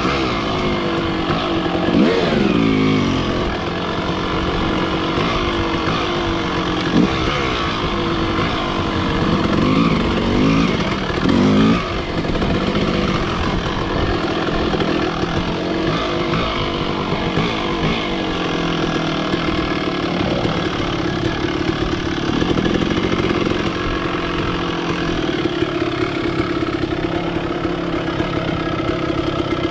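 Husqvarna TE 150i two-stroke enduro dirt bike engine, revving up and down with the throttle for the first twelve seconds or so, then running at a steadier pitch.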